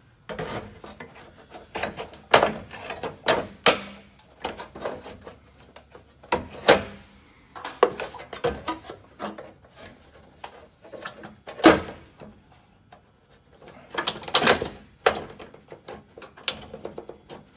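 Red aviation snips cutting the sheet metal of a gutter for an outlet hole: a run of irregular sharp snips, bunched in clusters with short gaps, the loudest one about two-thirds of the way in.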